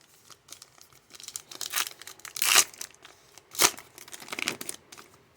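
Crinkly trading-card pack wrapper rustling and crackling in the hands, with two sharper, louder crackles about two and a half and three and a half seconds in.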